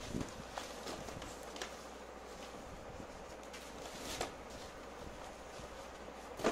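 Cardboard sheets and small paperboard boxes being handled and set down on a tiled floor: scattered light knocks and rustles a second or more apart, the loudest near the end, over a faint steady hum.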